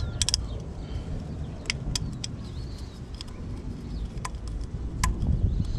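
Scattered light clicks and taps from handling the oil filter housing cap and its new O-ring: a quick cluster of clicks at the start, then a few single ones, over a steady low rumble.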